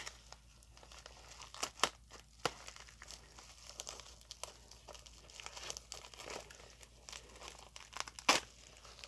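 Packaging being crinkled and torn open by hand, with scattered crackles and a few sharp snaps; the loudest snaps come about two seconds in and near the end.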